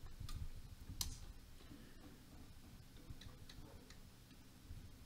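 Faint small clicks and taps, the loudest about a second in and a few more close together near the middle, over a soft low rumble of a laptop display panel being handled and shifted.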